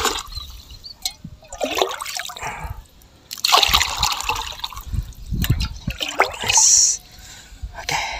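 Water scooped from a ditch with an enamel mug and poured into a plastic bucket, several pours in a row, each a splashing surge.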